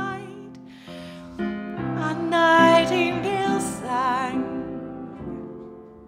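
A woman singing a slow ballad with vibrato over upright piano chords. Her voice swells to its loudest on long held notes about two and a half seconds in, then fades as the piano carries on.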